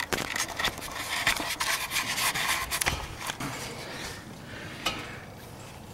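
Close rubbing and scratching handling noise with many scattered clicks and knocks, busiest in the first three seconds and quieter after.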